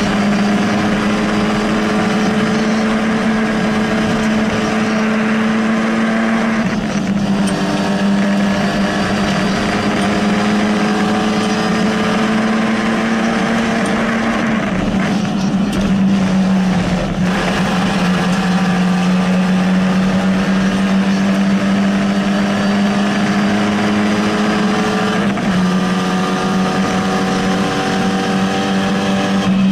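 Rally car engine heard from inside the cabin, running hard at speed with its pitch climbing slowly through each gear and dropping sharply at three upshifts, over a steady rush of tyre and road noise.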